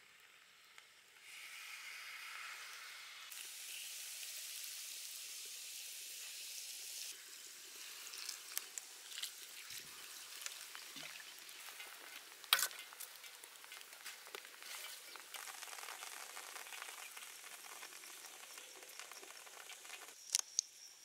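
Sprite poured from a plastic bottle into a hot wok of chicken drumsticks, the soda fizzing and sizzling as it meets the pan, settling into a steady crackle of small pops as the liquid heats. A sharp click about halfway through and two more near the end.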